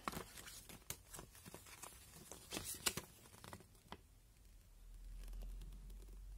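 Paper instruction leaflet rustling and crinkling as it is handled and unfolded. The crackles are loudest about three seconds in. A faint low hum comes in after about five seconds.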